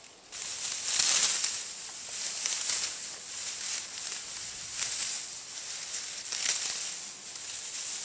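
Dry dead grass rustling and crackling as it is grabbed and pulled up by hand, in several louder surges of handfuls.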